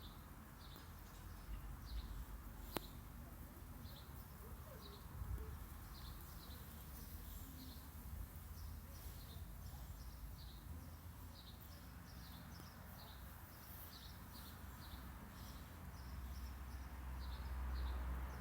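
Small songbird chirping repeatedly, with short high chirps at an uneven pace, over a steady low rumble. There is a single sharp click about three seconds in.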